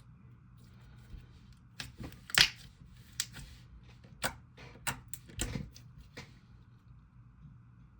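Hands pressing and poking a jelly slime, making a string of sharp, irregular clicks and pops, the loudest about two and a half seconds in.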